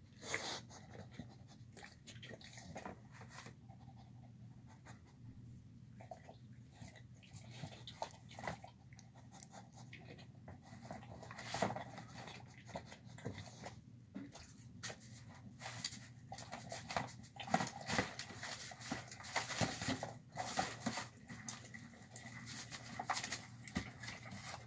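A dog eating a soft meal of chicken, rice and beans from a plastic tub: irregular licking, chewing and smacking with light clicks of mouth and tongue against the tub, growing busier in the second half.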